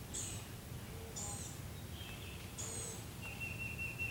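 Woodland birds calling: three short high chirps, then near the end a longer steady note, over a low background rumble.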